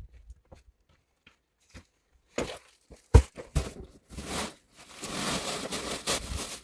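Rustling, crinkling handling noise: a few faint clicks, then louder scraping bursts with one sharp knock about three seconds in, going over into steady rustling.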